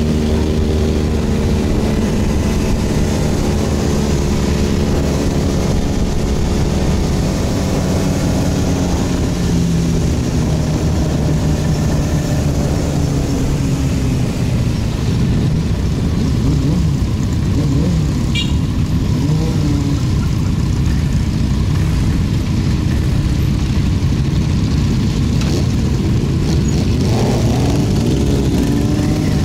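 Motorcycle engine running under way, most likely a Yamaha XT1200Z Super Ténéré's parallel-twin. The engine note holds steady for the first several seconds, then shifts, rising and falling a few times later on, over a steady rushing noise.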